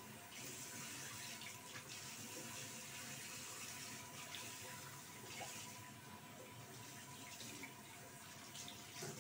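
Bathroom sink tap running steadily while a puppy is rinsed under the stream, water splashing off its wet fur into the basin.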